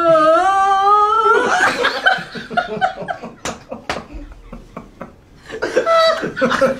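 A small group bursting into laughter, after one voice holds a long note that rises steadily in pitch. Two sharp smacks about half a second apart come in the middle of the laughter, which dies down briefly and then flares up again near the end.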